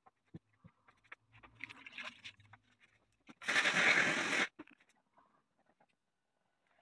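A burst of steam hissing for about a second onto a felt hat body, softening it for blocking over a wooden hat block. Before it comes soft rustling and scraping as the felt is handled.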